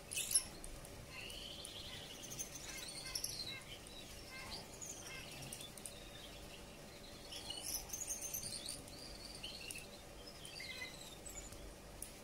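Male Gouldian finch singing its high-pitched courtship song in two bouts of squeaky chirps and rising and falling whistles. A sharp click near the start.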